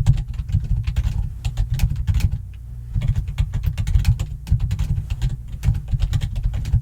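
Fast, loud typing on a computer keyboard: a quick run of key clacks with a deep thud on each stroke. The typing breaks off briefly about two and a half seconds in, then carries on.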